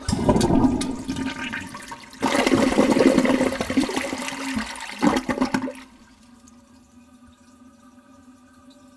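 Toilet flushing: a sudden rush of water that grows louder about two seconds in and cuts off after about six seconds, then settles to a much quieter steady running sound.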